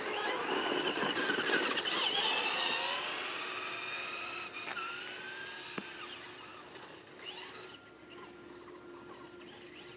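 Traxxas Slash RC truck's electric motor whining, its pitch sliding up and down with the throttle, loud for the first few seconds and then fading away. A single sharp knock about six seconds in.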